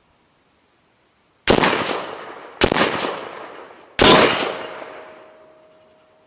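Three shots from a short-barrelled AR-15 rifle, the first two about a second apart and the third a second and a half later, each with a long echoing decay. A faint steady ring lingers after the third shot.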